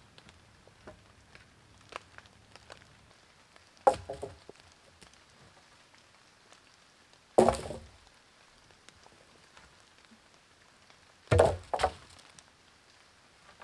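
Cut wooden poles thrown down onto a pile of other poles, landing with hard clattering knocks: one about four seconds in, one about halfway, and two in quick succession near the end.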